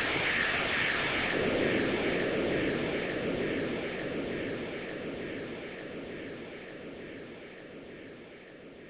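Steady rush of tyre and wind noise inside a car cabin at motorway speed, fading gradually from about three seconds in.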